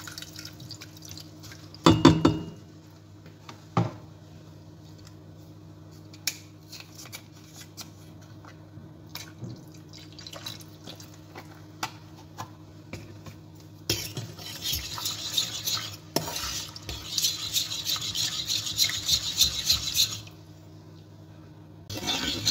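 Fork stirring and beating milk into a béchamel roux in a stainless steel pan: scattered clinks of metal on the pan, two louder knocks in the first few seconds, then a run of fast beating strokes for about six seconds that stops suddenly. A steady low hum sits underneath.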